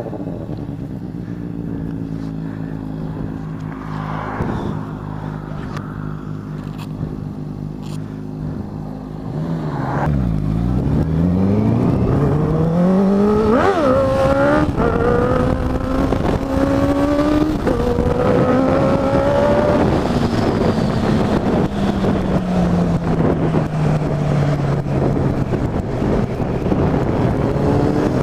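Honda CB650F inline-four engine idling steadily, then pulling away about ten seconds in and climbing in pitch through two upshifts. After that the revs fall back and wind rush grows at road speed.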